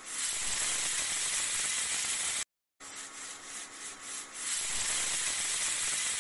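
Steady hissing noise from an intro sound effect. It breaks into a short silence about two and a half seconds in, comes back quieter with a faint pulsing, and rises to a steady hiss again about four and a half seconds in.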